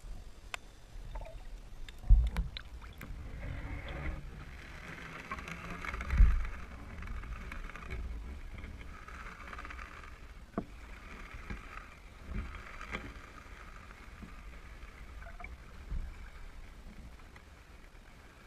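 Water sloshing and splashing around a camera held underwater and at the surface, heard muffled through the camera's housing. Two strong low thumps come about two and six seconds in, with scattered light knocks.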